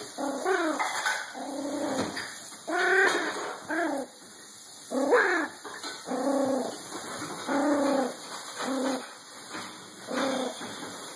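A tiny dog whining in a string of short, pitched cries, about a dozen, some sliding down in pitch.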